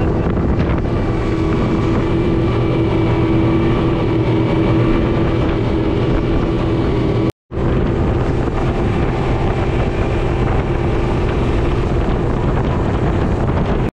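Boat's outboard motors running steadily at cruising speed, a constant engine hum over the rush of wind and water. The sound cuts out for a split second about seven seconds in.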